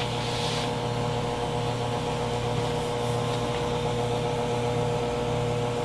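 A steady mechanical hum with a constant mid-pitched tone over a low drone, unchanging throughout.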